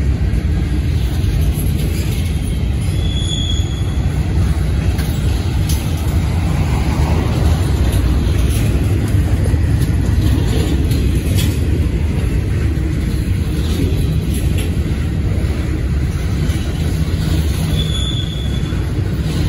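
Mixed freight cars (centerbeam flatcars, covered hoppers, boxcars) rolling past, a steady rumble of steel wheels on the rails. Two brief high squeals come about three seconds in and again near the end.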